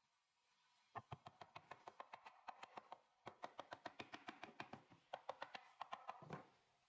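A hammer tapping on the wooden frame of a chair: a rapid series of quick knocks, about five a second, with a short pause partway through.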